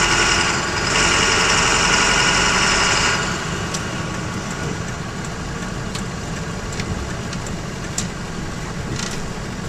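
Ford F-350's 7.3 L Power Stroke turbo-diesel V8 heard from inside the cab, running loudly while under way for about three seconds, then dropping to a quieter idle as the truck pulls over. A few light clicks sound over the idle.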